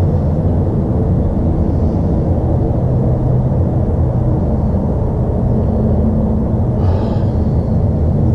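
Steady low rumble with a faint hum, and a brief higher-pitched squeak about seven seconds in.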